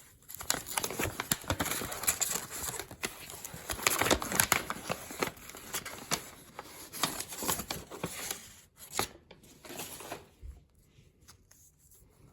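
A Pokémon card pack's wrapper being torn open and crinkled by hand, a dense run of crackling and tearing that dies down near the end.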